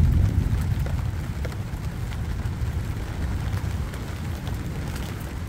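Distant thunder rumbling low, loudest at the start and slowly fading, during a rain shower.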